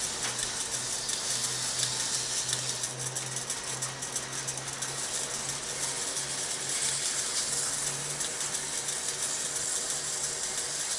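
Wood lathe running steadily at low speed with a constant motor hum, while a paper towel pressed against the spinning wooden lid makes a continuous rubbing hiss as beeswax is buffed in for the final polish.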